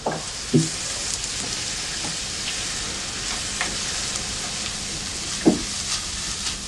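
Food sizzling and frying in a hot pan: a steady crackling hiss.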